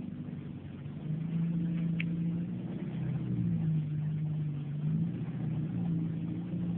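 Off-road SUV engine running under light throttle as the vehicle crawls through a rocky creek, its note stepping up and down a little as the throttle changes.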